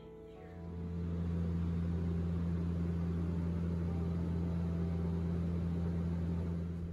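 Steady drone of a passenger jet's cabin: engine and airflow noise with a strong low hum, setting in about half a second in.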